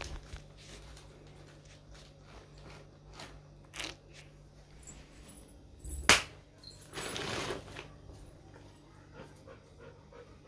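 Faint scattered taps of a slotted steel ladle in an aluminium pot of mutton curry, with a sharp knock about six seconds in and a short rushing noise a second later.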